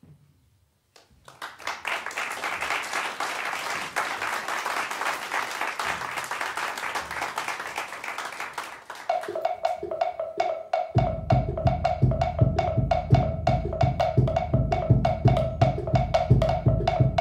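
Solo percussion played with mallets on a percussion table of drums and objects. A fast, dense rattle of tapping starts about a second in. From about nine seconds a rapidly repeated pitched note joins it, and from about eleven seconds fast low drum strokes join as well.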